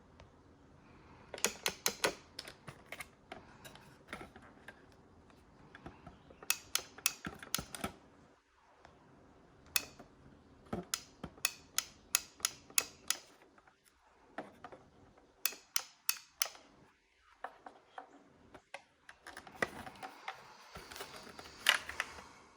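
Small parts of a refrigerator's water-dispenser assembly being worked by hand, in about six bursts of rapid, sharp clicks and taps.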